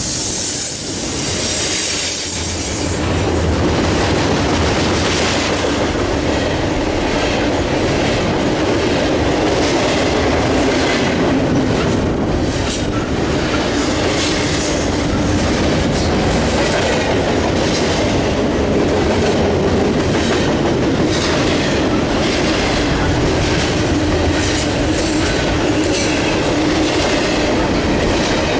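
Double-stack container well cars of a freight train rolling past at close range: a steady rumble of steel wheels on the rail, with repeated sharp clicks from the wheels.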